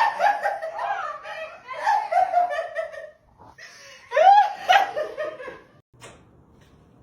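People laughing in bouts of short repeated 'ha' sounds, with a loud burst of laughter about four seconds in that dies away near the end.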